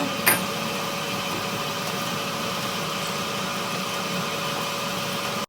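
A machine running steadily with a constant hum, and one sharp click about a third of a second in.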